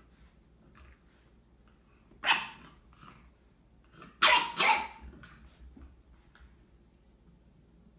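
A dog barking three times: one bark about two seconds in, then two barks in quick succession about four seconds in.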